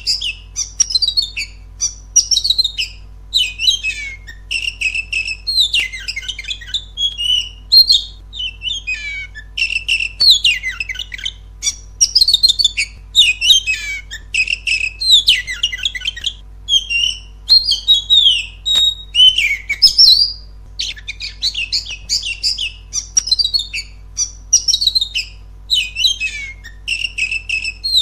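Oriental magpie-robin (kacer) singing loudly and without let-up: a long run of rapid, varied whistled and chattering phrases, broken only by brief pauses.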